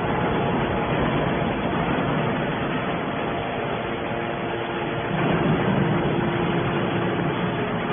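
Hydraulic baler running: a steady mechanical hum and noise from the hydraulic power unit, with a faint steady whine and a slight swell in level about five seconds in.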